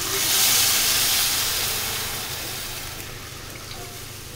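Milk poured into a hot kadhai of ghee-roasted vermicelli, hissing as it hits the hot pan. The hiss is loudest about half a second in and fades as the pour goes on.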